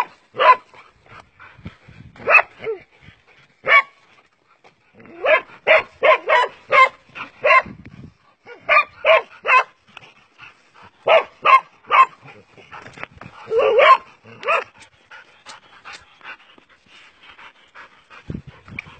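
Dog barking at a cobra: sharp barks in quick volleys of several a second, with short pauses between, growing sparse and quieter near the end.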